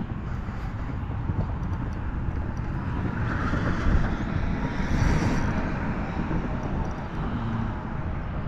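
Steady low rumble of wind buffeting the microphone over open water.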